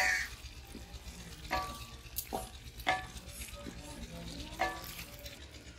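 Wooden spatula stirring mutton korma in a steel karahi, scraping and knocking against the pan about five times at uneven intervals, some strokes leaving a brief metallic ring. The masala sizzles underneath as it fries.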